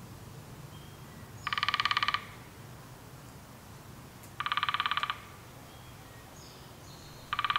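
A woodpecker drumming on a dead snag: three short, very rapid, even rolls, each under a second, a few seconds apart, the last starting near the end.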